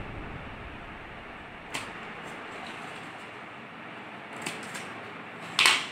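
Scissors snipping through coloured card paper in a few separate short cuts, the loudest just before the end, over a steady faint hiss.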